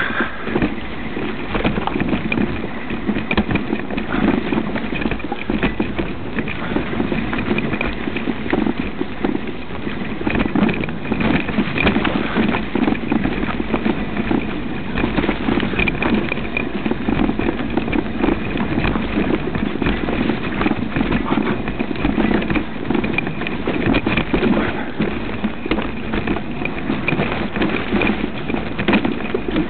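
Mountain bike descending a steep, rough trail, picked up by a camera mounted on the bike or rider: a constant rattling clatter of jolts and knocks as the tyres and frame run over roots, stones and leaf litter.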